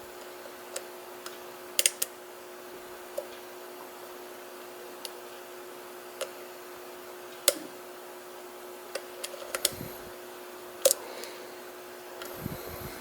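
Lock pick working the outer pins of a Mul-T-Lock pin-in-pin cylinder held under tension: sharp, irregular metallic clicks, a dozen or more, from the pick and pins, with a couple of soft thuds near the end. A steady hum runs underneath.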